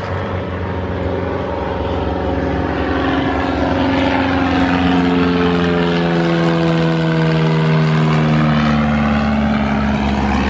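Propeller airplane flying low overhead: a loud engine drone that grows louder and then slides down in pitch from about four seconds in as the plane passes.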